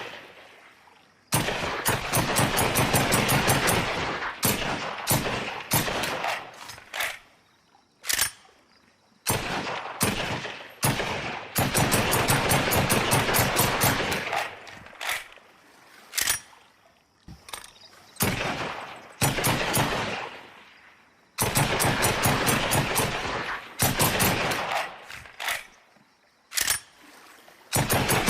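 M1 carbine gunfire: long strings of rapid shots broken by pauses and isolated single shots, each shot with an echoing tail.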